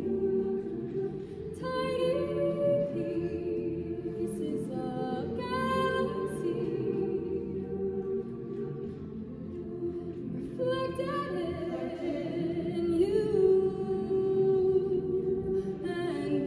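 Mixed choir singing held chords, with a female soloist's voice carrying over them and new vocal lines entering several times.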